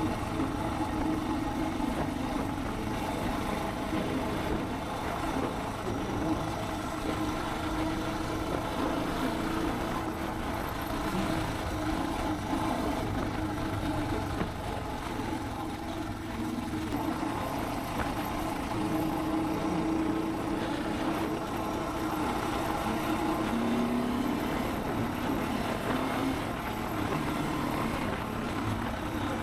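Suzuki DR650's single-cylinder four-stroke engine running steadily while riding, over a constant rush of wind and road noise. The engine note dips briefly about halfway through, then picks up again.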